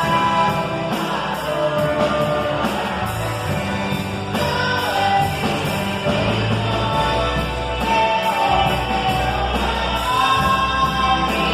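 A band playing a song with singing, the voice holding long notes over the instruments.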